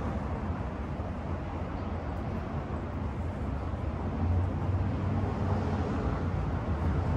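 Steady low rumble of street traffic, growing a little louder about four seconds in.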